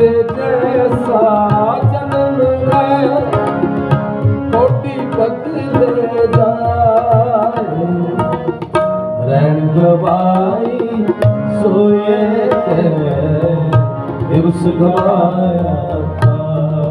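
Gurbani kirtan music: tabla playing a steady rhythm under a sustained harmonium melody.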